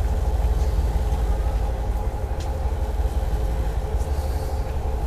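Steady low drone of a passenger ferry's engines and machinery, heard from inside the ship, with a faint even hum above it.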